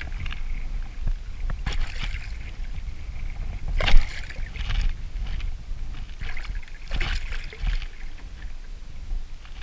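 Water splashing and lapping against a kayak hull, over a steady low rumble of wind on the microphone, with a sharper, louder hit about four seconds in.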